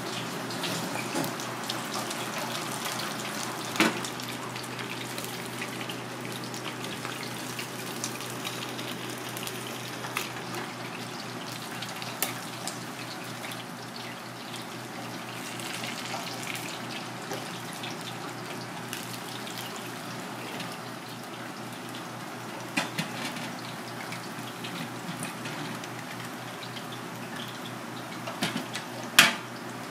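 Cooking sounds: a pan of water boiling with baby corn, and a fish sizzling as it deep-fries in oil, a steady bubbling hiss. A few sharp clinks of utensils stand out, one about four seconds in and a louder one near the end.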